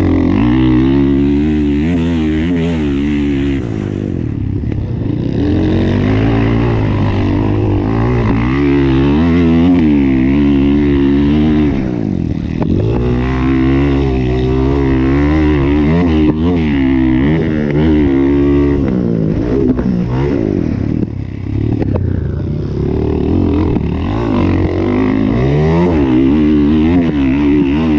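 Motocross bike engine heard up close from on the bike, revving hard and repeatedly rising and falling in pitch as the throttle is opened and shut around the track, with brief drops in revs a few times.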